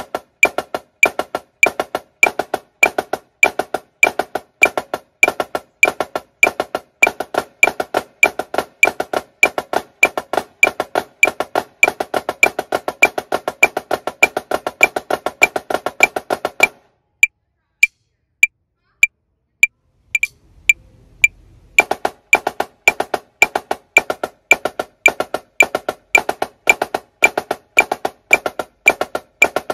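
Marching snare drum played with sticks in a flam taps exercise (a flam, then taps, alternating hands), over an evenly ticking metronome. The drumming stops about 17 seconds in, leaving the metronome clicking alone for about five seconds. Then the flam taps start again at a faster tempo, 110 beats per minute instead of 100.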